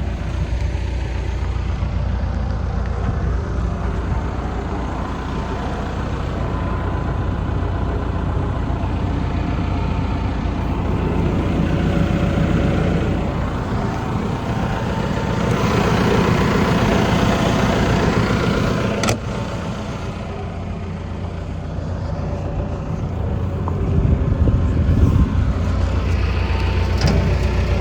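Diesel engine of a John Deere 225D LC track excavator running steadily, growing louder and rougher for a few seconds in the middle. There is one sharp click about 19 seconds in.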